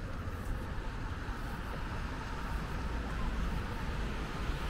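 Street traffic on rain-wet roads: a steady hiss of tyres on wet pavement over a low rumble, with the hiss swelling near the end as a vehicle comes closer.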